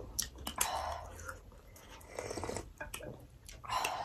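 Close-up eating sounds: chewing, and soup slurped from a bowl twice, about half a second in and again near the end, with a few sharp small clicks.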